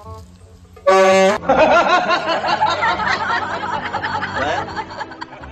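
A plastic toy trumpet horn blown in one loud, steady blast of about half a second, about a second in. Right after it come about four seconds of laughter, over soft music.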